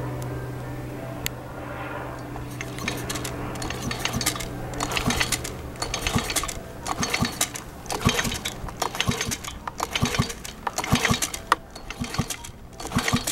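Recoil starter of a two-stroke leaf blower pulled over and over with the spark plug removed, so the engine spins freely without compression; from about four seconds in there are irregular clattering clicks and rattles from the starter and engine. The cranking is part of flushing an engine that is hard to start.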